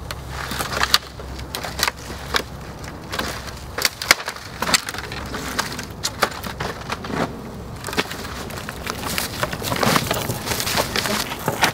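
Dry sticks and branches cracking and snapping, with snow and brush crunching, as a person pushes out through a shelter of leaning sticks. The snaps come irregularly, and the rustling and crunching grow denser near the end.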